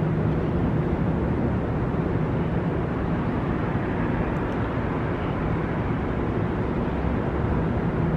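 Steady rumbling background noise of a concrete parking garage, with a faint low hum running under it.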